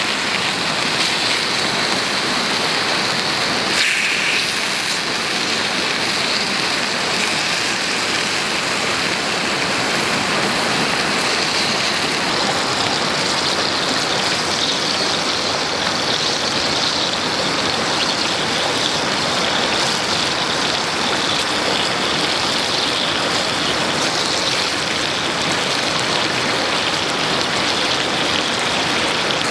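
Steady rushing noise of water, even and unbroken.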